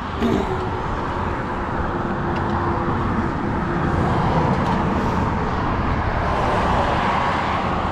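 Steady road noise from traffic on the interstate highway below the bridge, swelling a little past the middle as vehicles pass underneath.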